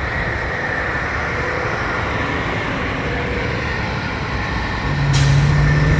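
Diesel dump truck engines running steadily. Just before five seconds in, a louder engine note comes up, followed by a short hiss of air.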